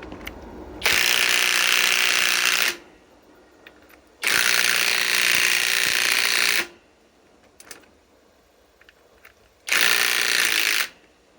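Cordless Flex compact impact wrench hammering a 6-inch lag screw into wood in three bursts, the last one short. It stops when the lag screw snaps.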